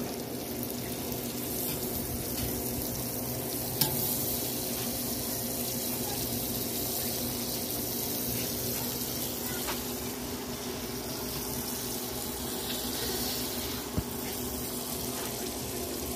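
Butter sizzling and bubbling as it melts on a large hot flat iron griddle (tawa), a steady hiss with a steady low hum beneath it. Two brief clicks, about four seconds in and near the end.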